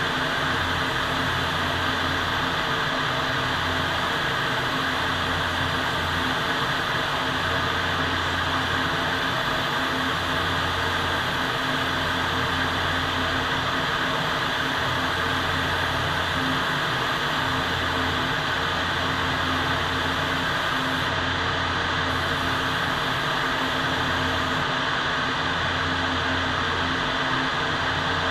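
Steady rushing-air noise of a paint spray booth's ventilation running, with a low hum that comes and goes every second or two.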